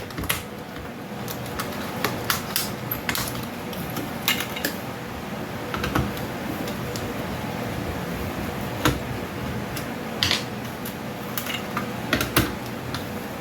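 Irregular light clicks and clinks of hand work on a microwave's control board, as the board is being taken out to reach its transformer.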